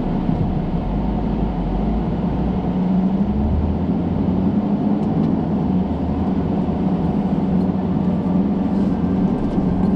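Six-wheeler 4x4 truck driving steadily: a continuous engine drone with tyre and road rumble, the engine note shifting slightly about three seconds in.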